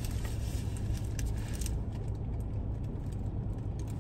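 Steady low rumble of a car's cabin, with a few short crinkles as the foil is pulled off a wrap about a second in.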